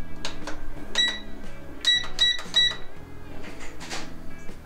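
Cook's Essentials air fryer's digital control panel beeping as its buttons are pressed to set the temperature to 400 °F: four short, high electronic beeps, three of them in quick succession.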